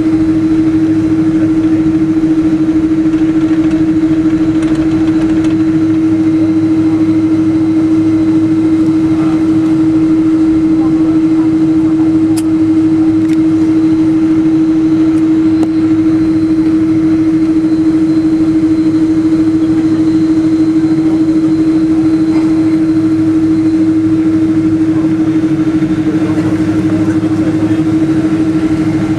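Cabin noise of a Boeing 777-200 airliner taxiing, its engines at idle: a loud, steady hum over a low rumble.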